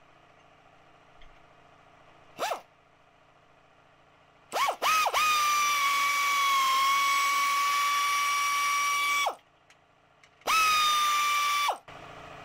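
Power driver running self-tapping screws into sheet metal. There is a short spin, then two quick blips, then a steady motor whine of about four seconds, and a final run of about a second near the end.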